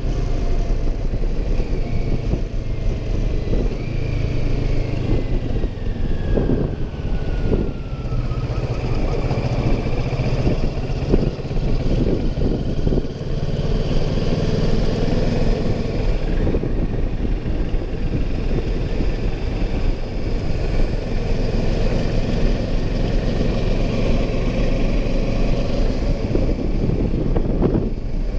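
Motorcycle running at road speed, heard from a camera mounted on the bike: a steady engine drone under wind and road noise, with irregular gusts of wind on the microphone.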